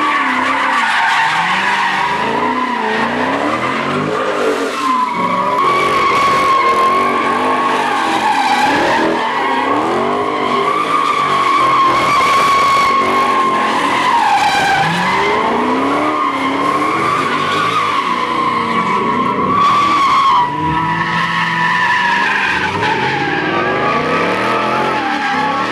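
Muscle cars (a Dodge Charger, then a Ford Mustang) doing donuts: rear tires squealing continuously against the asphalt while the engines rev up and down. The squeal breaks and shifts pitch briefly about twenty seconds in.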